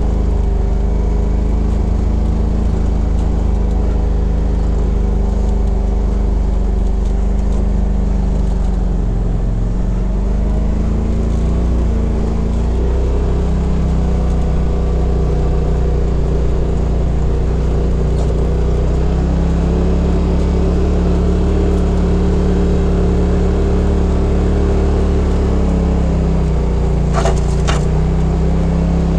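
Polaris RZR XP Turbo's turbocharged twin-cylinder engine running at a steady low speed while the side-by-side crawls along a snowy trail. Its note dips and picks back up about ten seconds in, and shifts again near the end.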